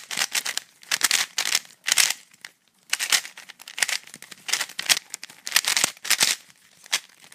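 YJ Chilong 3x3 plastic speedcube being turned fast during a solve: rapid clicking and clacking of the layers in quick runs of turns broken by short pauses.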